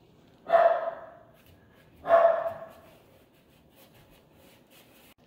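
A dog barking twice, about a second and a half apart.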